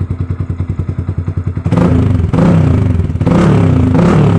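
Motorcycle engine through an Akrapovic carbon muffler with the silencer insert removed, running open-pipe. It idles with an even, pulsing beat, then is revved loudly in a few quick blips about a second and a half in, and drops back toward idle near the end.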